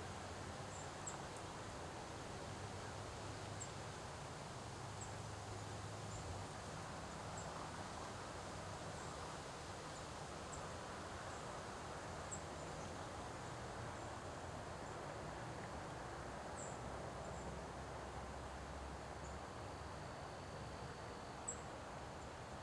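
Autumn windstorm gusting through trees: a steady rushing of wind and leaves that swells and eases, with a low rumble underneath and a few faint high chirps scattered through it.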